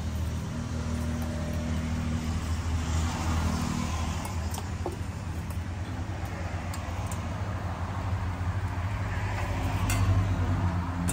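Street traffic: a motor vehicle engine running steadily close by, with the traffic growing louder near the end.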